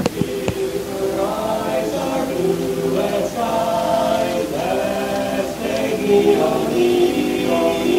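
Male barbershop quartet singing a cappella in close four-part harmony, moving through a series of held chords.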